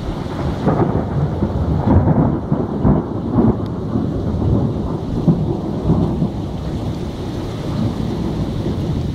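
Thunder rolling and crackling with steady rain, the rumble heaviest for the first six seconds and then easing.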